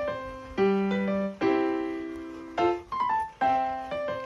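Background music played on a keyboard: chords struck about once a second, each fading out before the next.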